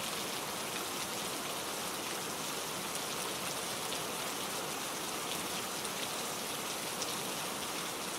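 Steady rain falling on hard surfaces, an even hiss with many individual drop ticks.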